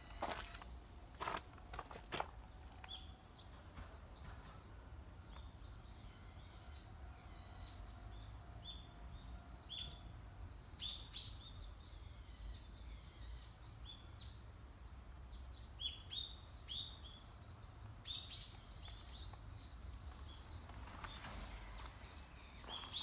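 Small birds chirping: short, high calls that fall in pitch, coming in clusters over faint outdoor background noise. A few short knocks sound in the first two seconds.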